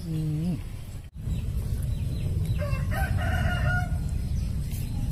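A rooster crowing: the falling end of one crow in the first half second, then a second, higher crow about three seconds in, over a low rumble.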